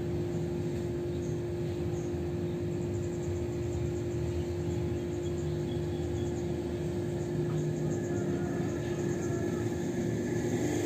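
Steady hum with one constant mid-low tone over a faint background hiss, unchanging throughout.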